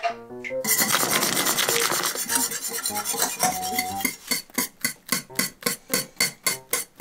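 Wire whisk stirring pudding mix into milk in a stainless steel saucepan, its wires scraping the pan. The scraping starts about half a second in, fast and dense at first, then settles into even strokes about three a second from about four seconds in.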